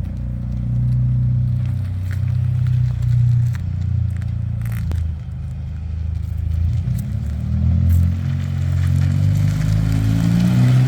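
Exhaust of a Hyundai Sonata N Line's turbocharged 2.5-litre four-cylinder, through a home-welded bolt-on exhaust, running at low revs in first gear. Sharp overrun pops and crackles come as the throttle is lifted at around 2,000–2,500 rpm, scattered mostly through the first half, and the revs climb again from about seven seconds in.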